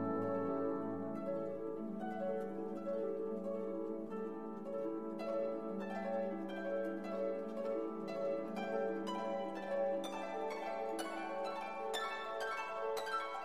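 Background instrumental music: plucked-string notes over held lower tones, the plucked notes growing busier about halfway through.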